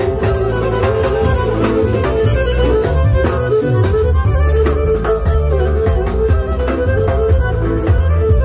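Live amplified folk dance music: a bowed-string melody over a Korg Pa1000 arranger keyboard, with a steady bass and drum beat.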